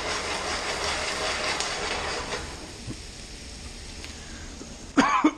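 Sliced onions sizzling in a frying pan, the sizzle louder for the first two seconds or so after the pan is tossed, then settling lower. A brief vocal sound comes near the end.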